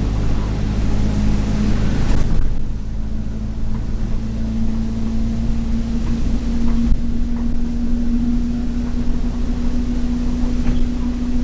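Alexander Dennis Enviro200 single-deck bus heard from inside the saloon while under way. The diesel drone is steady, with a strong whine that climbs slowly in pitch as the bus gathers speed. A hissing rush drops away sharply about two seconds in, and faint rattles tick now and then.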